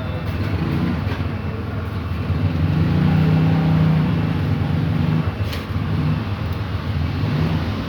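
A motor vehicle engine running steadily with a low hum, growing louder for a few seconds in the middle and then easing off.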